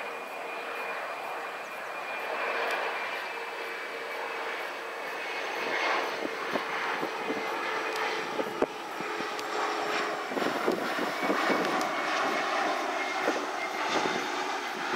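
Fokker 100 jetliner on final approach with gear down, its two rear-mounted Rolls-Royce Tay turbofans giving a continuous rushing jet noise with a steady humming tone that fades out about two-thirds of the way through, the whole growing slowly louder as it passes. One sharp click just past the middle.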